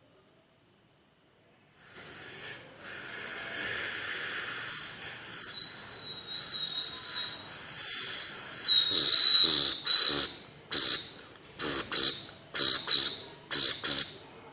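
A beatboxer imitating a cricket with his mouth, upper teeth set on the lower lip. It starts as breathy blowing, becomes a high, wavering whistle, then turns into a run of short, loud chirps as he blows hard enough to make the upper lip flutter.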